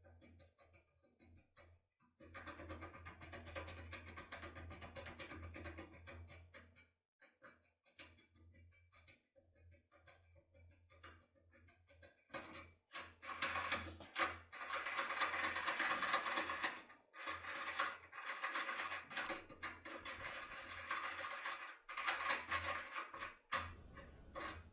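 Foil-covered locksmith tool being jiggled and worked in the keyway of a Securemme K75 lock cylinder: scratchy metal rattling and quick clicks, in a short spell, a pause with scattered clicks, then a longer, louder spell through the second half.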